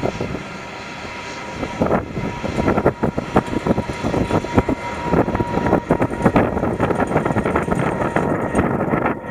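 Twin jet engines of a Boeing 777 at takeoff power during climb-out, a loud rumble full of irregular crackle with a faint steady whine. It drops briefly in loudness near the start, then rises again about two seconds in.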